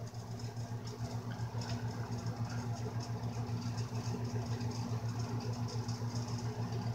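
A steady low mechanical hum with a quick, even throb, like a small motor or fan running.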